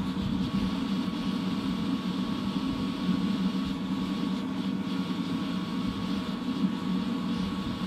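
Waste oil burner with forced air supply firing in the melting furnace: a steady roar with a faint steady whine over it.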